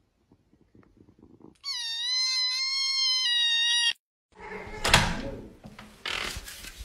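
A tabby kitten gives one long, high, angry meow, about two seconds, falling slightly in pitch, after it fails to steal food. After a short gap come rustling and a single sharp knock.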